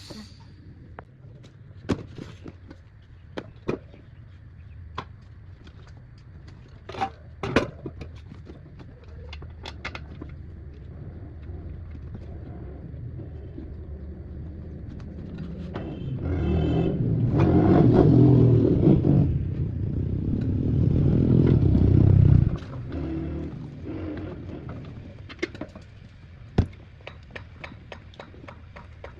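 Workshop handling noises: scattered clicks and knocks of tools and parts. In the middle a loud low rumble builds for several seconds, then stops abruptly.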